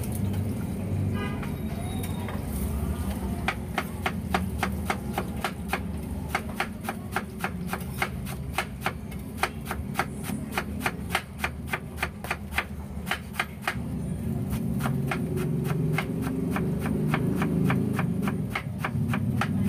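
A large knife rapidly chopping spring onions on a wooden cutting board: a steady run of sharp knocks of the blade on the board, about three a second, growing fainter in the last few seconds.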